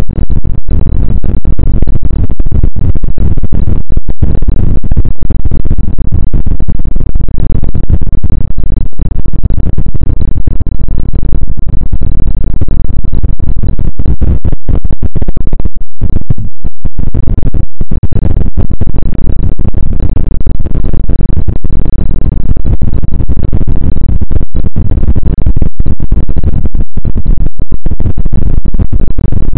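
Noise music at full loudness: a dense, heavily clipped wall of noise, strongest in the low end, with no clear pitch and frequent split-second dropouts.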